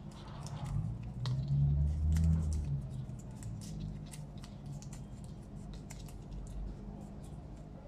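Hands wrapping and pressing adhesive tape around small magnets on a length of copper wire: a scatter of small clicks and crinkles throughout, with a low muffled rumble from about one to nearly three seconds in.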